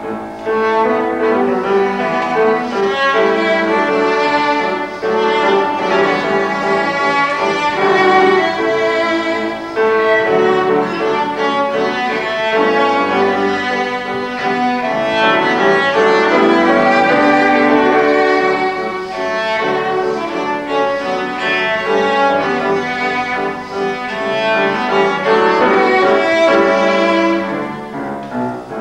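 Cello and piano playing a classical piece together, the bowed cello line carried over the piano.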